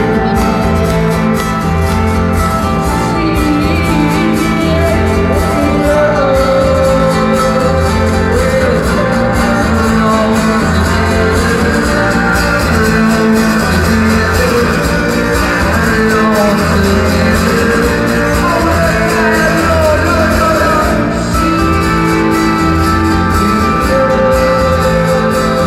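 Live music with guitar, a singing voice and a low bass note repeating about every two seconds.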